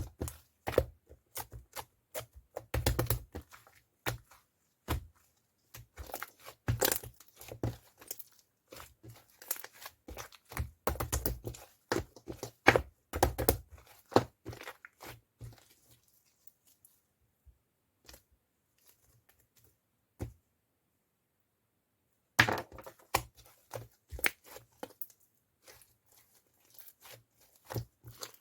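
Close-up handling sounds: irregular taps and thunks with crinkling and tearing, as of paper or plastic being handled, with a stretch of near silence around the middle.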